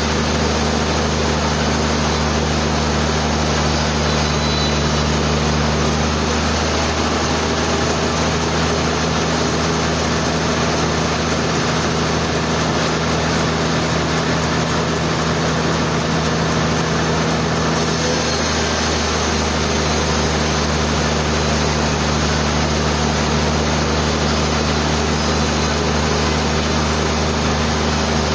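Sawmill machinery running steadily: a constant engine-driven hum with a dense noise layer over it. There are no breaks and no sudden events.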